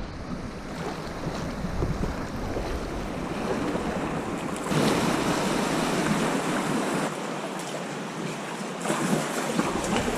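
Sea waves washing, with wind buffeting the microphone; the water gets louder about halfway through.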